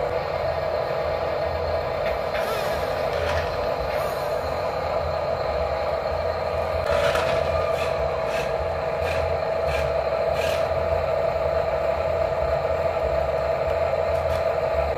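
Double E Volvo RC articulated dump truck driving, its small electric drive motor and gearbox giving a steady whine over a low rumble, with a few sharp clicks and scrapes about halfway through.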